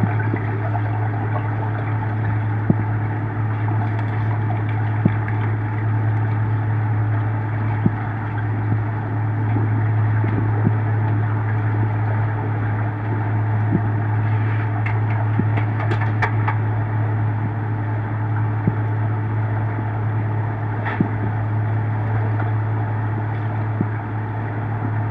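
Underwater pool noise heard through the camera's housing: a steady low hum with an even hiss, and a few faint clicks scattered through it.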